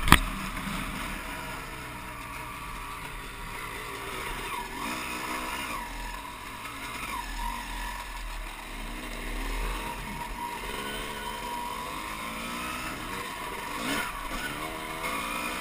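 Dirt bike engine running under way, its pitch rising and falling again and again as the rider works the throttle along the trail, with wind rumble on the microphone.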